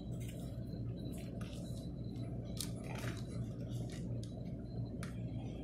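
Light, scattered clicks and rustles of small wiring parts being handled, over a steady low hum.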